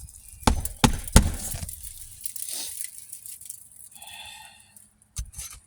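Hammer driving roofing nails into an asphalt shingle: three quick blows in the first second or so, then a pause, then a couple more blows near the end.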